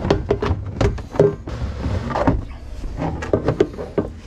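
Hard plastic marine battery box being unstrapped and its lid lifted off the battery: a quick run of plastic clicks, knocks and scrapes.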